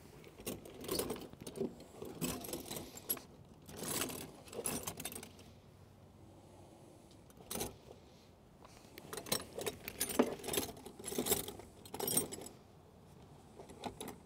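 Metallic clinking and rattling from battery cables, terminals and a tool being handled while wiring is disconnected from a boat's battery switch, in two spells of quick irregular clicks with a single click between them.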